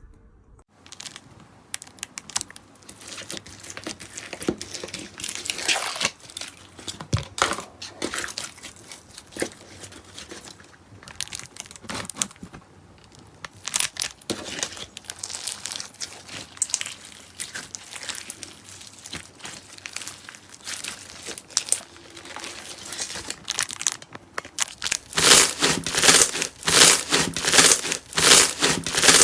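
Slime being squeezed, stretched and pressed by hand, giving a dense run of small clicks and pops. It grows louder and quicker near the end.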